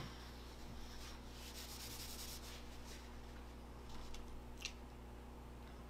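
Faint rubbing and rustling over a low steady hum, a little busier early on and with two short brushes near the end, as of a paper-wrapped sandwich being handled.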